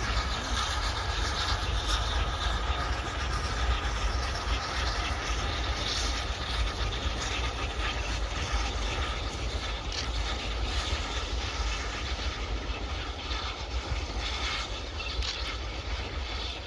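GWR Large Prairie steam tank locomotive 4144 running past at a distance with its train of coaches, heard under a heavy low rumble of wind on the microphone.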